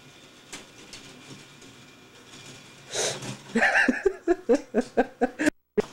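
Laughter in a quick run of short, rhythmic bursts, starting after a quiet few seconds, with the sound cutting out for a moment near the end.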